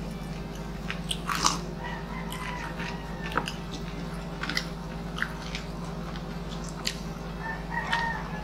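Close-miked eating sounds: chewing, lip smacks and irregular crunches from two people eating crispy fried pork knuckle (crispy pata) and rice by hand, over a steady low hum.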